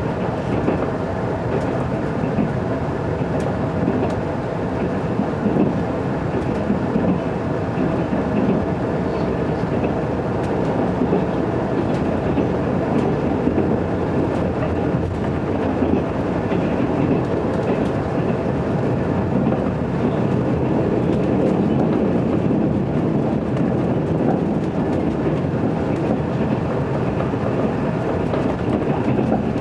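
Steady running noise inside a 381-series limited-express train car moving at speed: wheels rumbling on the rails, with occasional faint clicks.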